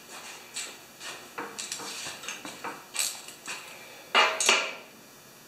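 Ratchet wrench clicking and metal tool clinking as the bolts on a snowblower's auger housing are snugged up, with a quick louder run of clicks about four seconds in.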